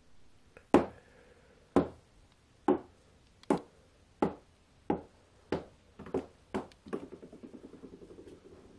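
A bouncy ball bouncing on a hard floor: about ten bounces coming ever faster and softer, ending in a quick rattle of tiny bounces as it settles.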